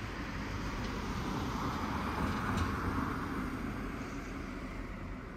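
A car passing on a nearby street, its noise swelling to a peak about halfway through and then fading.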